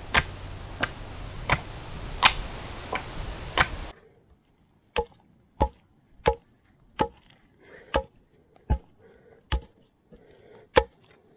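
Machete chopping at the end of a wooden stake to sharpen it, in sharp, evenly spaced chops about every three quarters of a second. The first four seconds hold a similar run of blows over more background hiss.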